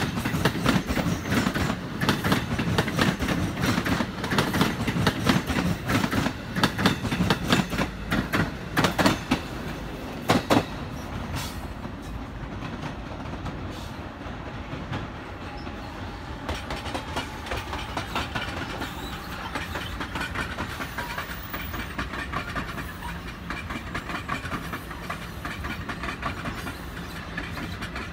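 A passing train's wheels clacking rapidly over rail joints above a heavy rumble. The clacking ends with a last pair of clacks about ten seconds in, and a quieter steady rumble follows.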